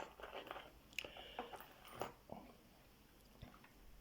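Faint handling noise: a few light, sharp clicks about a second apart with soft rustling and scraping between them, as a small metal pick and tension tool is handled.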